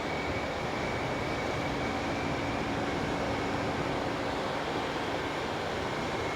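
Mobile crane's engine running steadily while it hoists a rooftop HVAC unit, a continuous rumbling noise with a faint high whine over it.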